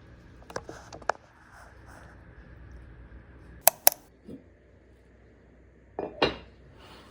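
Kitchen clatter: dishes and utensils clinking and knocking, a few light clicks, then two sharp clinks in quick succession and a heavier pair of knocks near the end.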